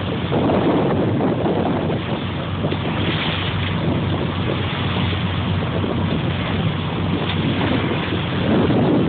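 A fishing boat's engine running steadily with a low hum, under wind buffeting the microphone and the wash of sea water.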